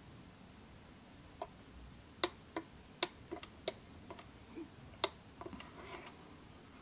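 Plastic push buttons on a D30 digital valve positioner's keypad clicking as they are pressed, a dozen or so sharp, unevenly spaced clicks.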